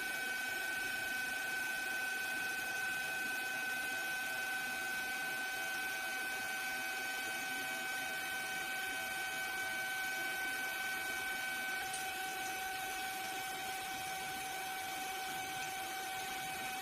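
A small motor running steadily, giving a constant high whine over a light hiss.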